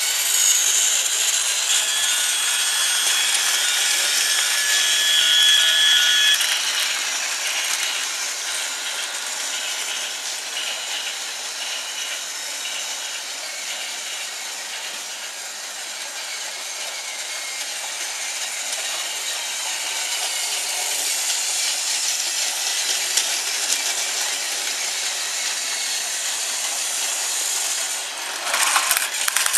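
Battery-powered toy trains running on plastic track: a steady whirring and rattling of small motors, gears and wheels. A high whine is heard for a few seconds near the start, and a few sharp clicks come near the end.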